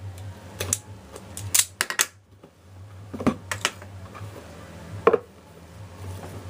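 Cardboard and paper packaging of a phone box being opened and handled by hand: a scattered run of sharp clicks and crackles, loudest about five seconds in, over a steady low hum.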